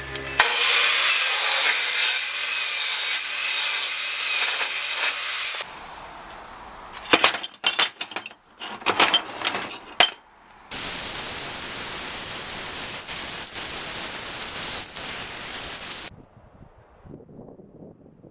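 Power tool working steel stock in two long runs of several seconds, the first the louder, with a handful of short scraping strokes between them.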